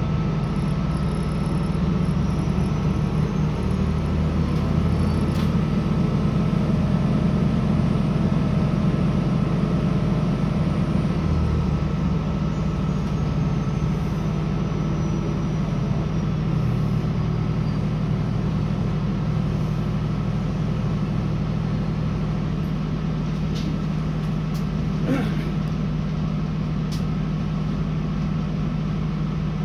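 Cabin sound of a CAF Class 3000 diesel multiple unit pulling out of a station and gathering speed: a steady low drone from the underfloor diesel engine and transmission, its lowest notes shifting in the first half as the train accelerates.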